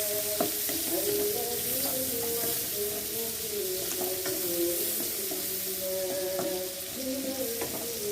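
Oil sizzling in a pan as a stir-fry is cooked, with a spatula clicking against the pan several times. A soft background melody plays under it.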